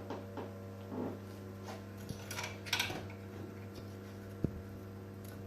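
Light clatter of a plate and utensils being handled: scattered clicks and soft knocks, with a sharper knock about four and a half seconds in, over a steady low hum.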